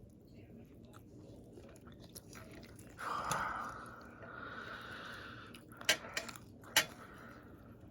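A person chewing fried chicken, with a short breathy sound about three seconds in and two sharp crunches near the end.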